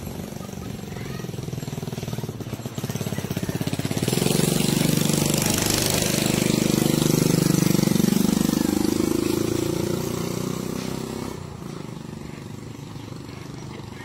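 Small motorcycle engine passing close by with a fast, even putter. It grows louder about four seconds in, is loudest around the middle, then fades as it moves away.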